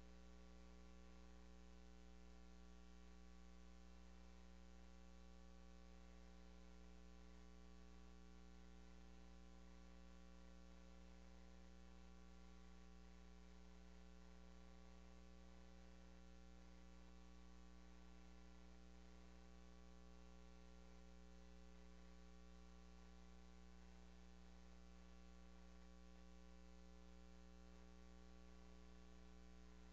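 Near silence: only a steady low electrical mains hum with faint hiss in the sound feed.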